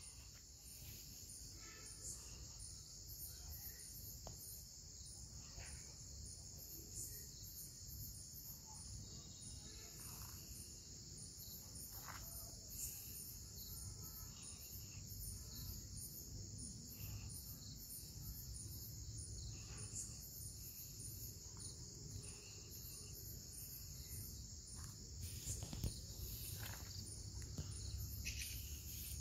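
Faint, steady chorus of crickets: a continuous high trill with quick, even pulsing chirps above it. A few soft clicks and rustles of handling come through at scattered moments.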